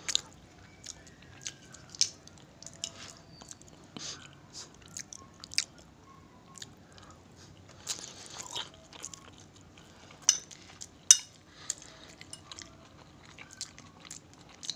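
Close-up chewing and mouth sounds of someone eating a chewy cassava cake with a sweet coconut (bukayo) filling: short, sharp wet clicks and smacks at irregular intervals, with now and then a fork clicking on a glass plate.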